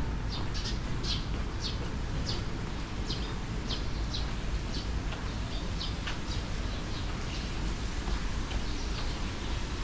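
A small bird chirping repeatedly, short high chirps about every half second, thinning out after about six seconds, over a steady low background rumble.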